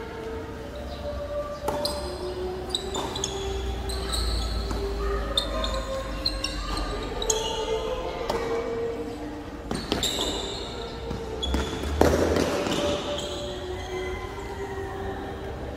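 Tennis rally on a hard indoor court: irregular racket strikes and ball bounces echoing in a large hall, with short high squeaks in between. The loudest hit comes about twelve seconds in, and faint voices sit underneath.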